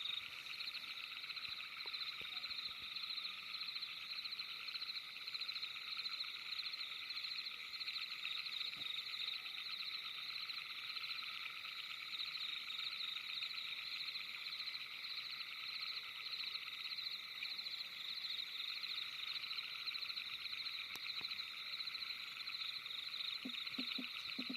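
Steady night chorus of many calling animals, all trilling together in rapid pulses at several pitches, with a few faint knocks near the end.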